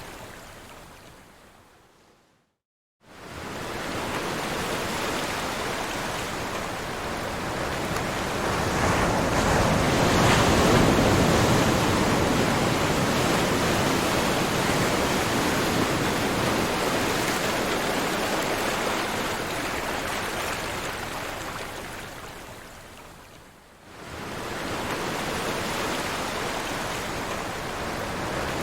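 Ocean waves washing on the shore as a steady rush of surf. It fades out to a moment of silence about two seconds in, cuts back in abruptly, swells, then dies down again and returns near the end.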